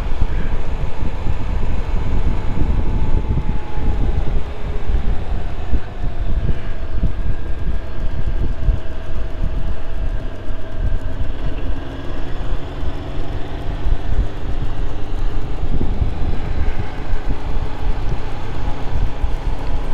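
Motorcycle engine running on the road under heavy wind noise, its note slowly falling and rising with changes of speed.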